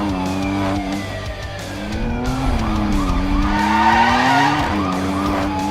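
Racing-car engine drone and tyre-skid sound effects, with tones that bend up and down, over background music.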